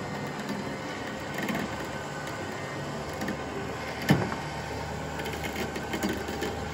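A motor running steadily with a faint whine, with one sharp clank about four seconds in.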